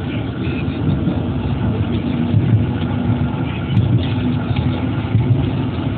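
A moving tram heard from inside the car: a steady low rumble of its running on the tracks, with one brief sharp click a little past halfway.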